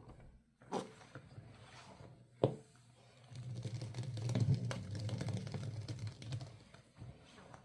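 Hands squeezing and rubbing wet, soapy laundry, with squishy crackling sounds. There is a sharp squish about a second in and another at about two and a half seconds, then steady squishing and rubbing for about four seconds.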